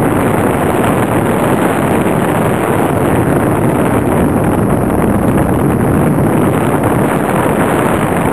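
Wind blowing across the microphone: a loud, steady rumbling rush with no distinct engine note.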